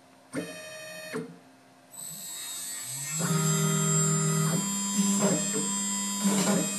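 CNC router starting a job: a brief pitched hum, then the VFD-driven spindle spins up to a steady high whine, joined about three seconds in by the louder pitched hum of the stepper motors, which shifts pitch in steps as the gantry moves.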